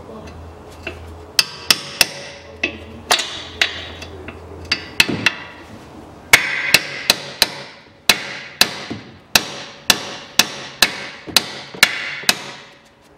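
Hammer striking a screwdriver wedged into the steering knuckle's pinch-bolt ball-joint clamp, spreading the clamp to free the lower ball joint's stud. About two dozen sharp ringing metal strikes, a few at a time at first, then a quicker run of about three a second.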